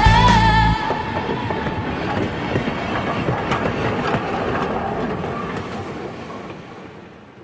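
Train running past with faint clicks of wheels over the rails, its sound steadily dying away. Background music ends about a second in.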